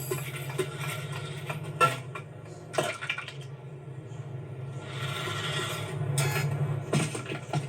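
Film sound effects: a steady low drone with scattered sharp clanks and scrapes, the loudest knock about two seconds in.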